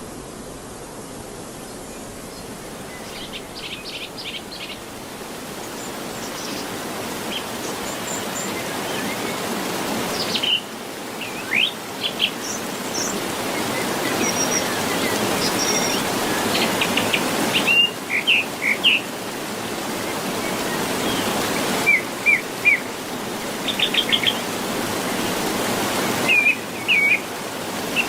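Steady rushing of a waterfall that slowly grows louder and shifts abruptly a few times, with birds chirping and giving short rapid trills over it.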